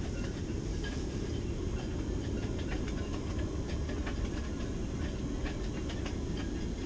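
Wind buffeting the microphone: a steady low rumble with faint scattered ticks.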